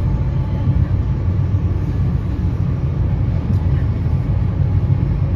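Steady low rumble of an NJ Transit Comet passenger coach rolling at speed, heard from inside the passenger cabin.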